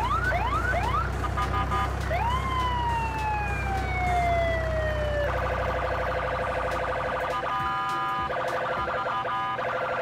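Electronic police siren: a few quick rising whoops, then one long falling wail, then a fast warbling yelp that breaks off briefly twice near the end.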